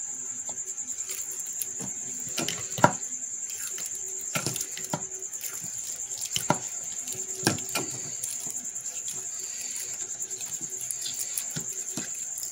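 Black PVC insulating tape being pulled off the roll and wound around a spliced cable joint: scattered clicks and rustles, with one sharper click about three seconds in. A steady high-pitched whine runs underneath.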